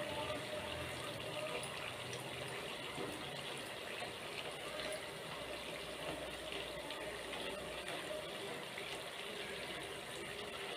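Murukku dough coils deep-frying in hot oil in a steel kadai: a steady sizzle with fine crackling as the oil bubbles around the coils.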